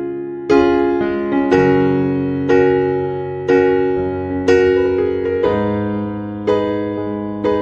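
Background piano music: a slow run of chords, one struck about once a second, each fading away before the next.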